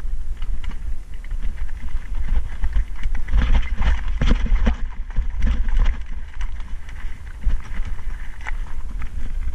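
Mountain bike rolling over loose, rocky ground: tyres crunching on stones and the bike clattering, busiest about three to six seconds in, over a steady wind rumble on the camera microphone.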